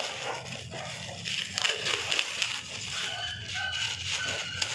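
Plastic bag rustling and crinkling as it is pulled out and unfolded by hand, with a few faint, short high tones near the end.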